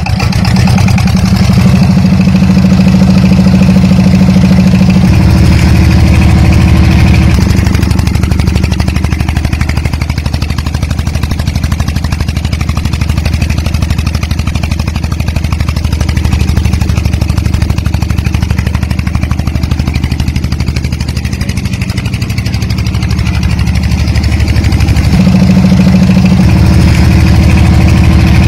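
Small single-cylinder diesel engine running steadily with a fast, even chugging, its pitch shifting a little now and then.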